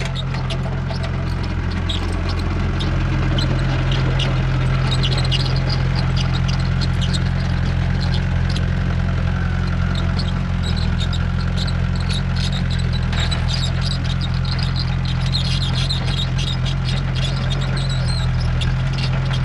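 Tracked excavator's diesel engine running steadily under work, with many short clanks and rattles from its steel tracks and the dirt and stones it moves.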